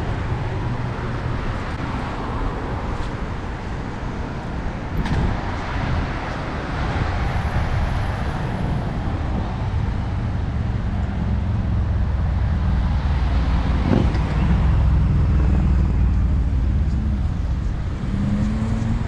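City street traffic: cars passing in a steady low rumble that swells a little in the second half, with a short rising engine note near the end.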